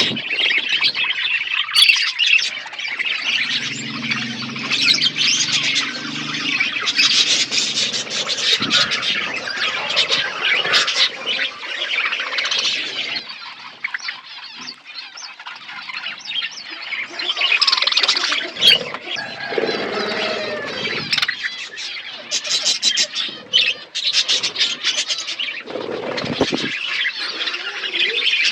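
A flock of budgerigars chattering, with a constant mix of chirps and squawks that eases off into a quieter lull about halfway through.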